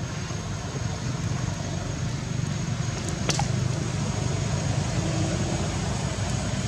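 Steady low outdoor background rumble with a faint high steady tone above it, and a single sharp click about halfway through.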